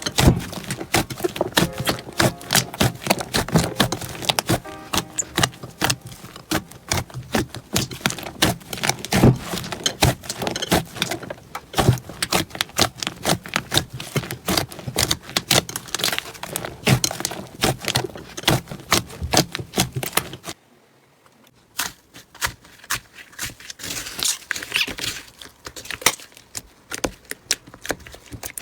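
Slime being squeezed and kneaded by hand, giving dense, irregular crackling and clicking. It stops abruptly about twenty seconds in, and after a brief pause a quieter, sparser clicking follows.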